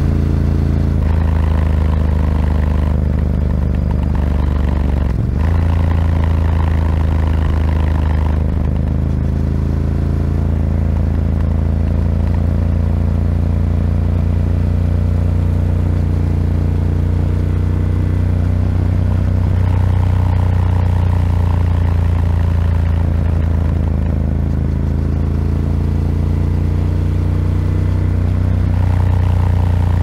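Ducati Scrambler 1100's air-cooled L-twin running through a Termignoni exhaust while riding, heard from on the bike. The engine note steps up and down in pitch several times as the throttle and revs change.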